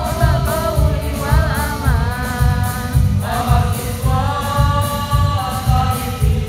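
Mixed choir singing a march in unison over accompaniment with a steady beat of about two pulses a second; the voices break for a breath about halfway through and start a new phrase.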